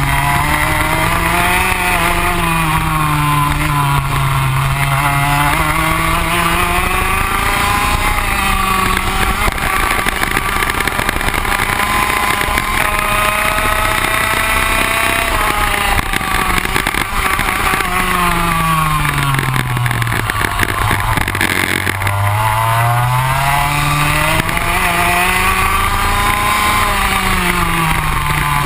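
Rotax Max 125 single-cylinder two-stroke kart engine heard from on board at racing speed, its pitch rising under throttle and dropping as the kart slows for corners several times over. The deepest drop comes a little past two-thirds of the way through, before it winds back up.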